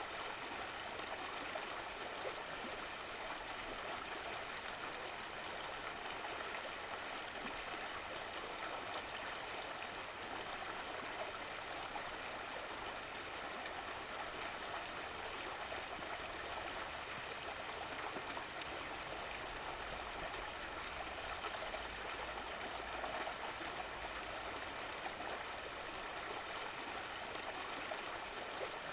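Running water of a stream flowing and trickling steadily, with no pauses or distinct events.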